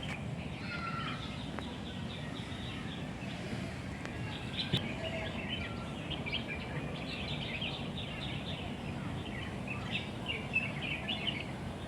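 Small birds chirping and twittering in many quick short notes over steady low background noise.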